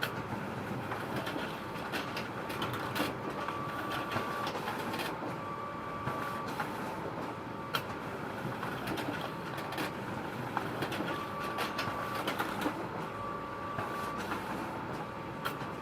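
Photocopier running: a steady mechanical whirr with frequent sharp clicks, and a short high tone that comes and goes every few seconds.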